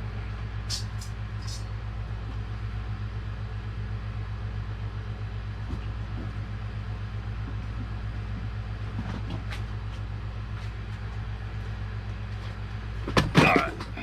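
Steady low mechanical hum with a fine pulsing, like an idling engine, with a few light clicks about a second in and a loud rattling clatter near the end.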